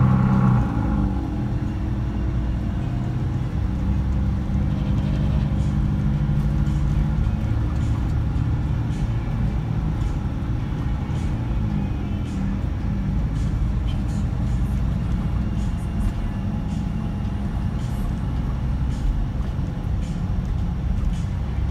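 Scania K124 straight-six diesel engine running steadily, heard from inside the Irizar PB coach's cabin along with road noise and a few light interior rattles.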